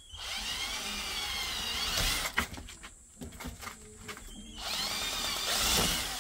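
Power drill running in two bursts, its pitch swinging up and down, with a sharp click and short stop-start pulses in between.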